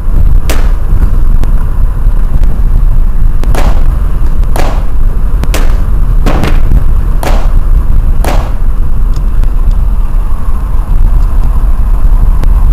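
Sound-effect gunfire: about seven sharp shots over a heavy, continuous low rumble, one near the start and then roughly one a second after a pause.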